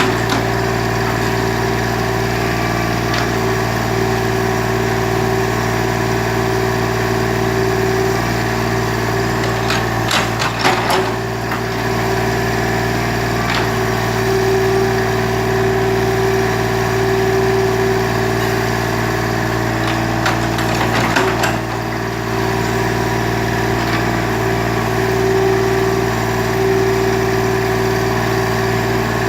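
Excavator's diesel engine running steadily. Clusters of knocks and clatter come about ten seconds in and again just past twenty seconds.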